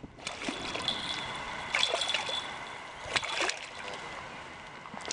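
Water splashing in a few sudden bursts, about a second and a half apart, from a hooked channel catfish thrashing in the shallows at the river's edge.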